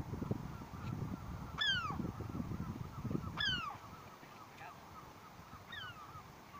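Gull calling three times, each a short call falling in pitch, about two seconds apart, the last one fainter. A low rumbling noise runs under the first two calls and fades after them.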